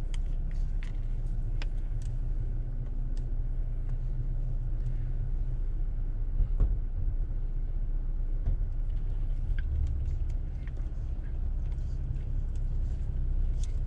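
Steady low rumble of a car heard from inside the cabin, with scattered light clicks and one sharper knock about six and a half seconds in.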